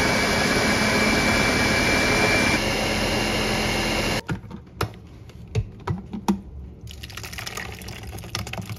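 Countertop blender running at full speed, pureeing boiled tomatillos, jalapeño, avocado and cilantro into salsa: a loud steady whir with a thin whine that drops out about two and a half seconds in. The motor switches off abruptly about four seconds in. A few sharp clicks and knocks follow, then thick salsa pouring from the jar into a bowl near the end.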